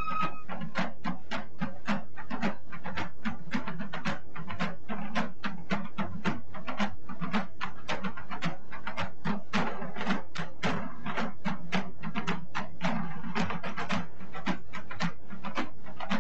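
Background music with a fast, even run of short percussive strokes, about five a second, over a pulsing low beat.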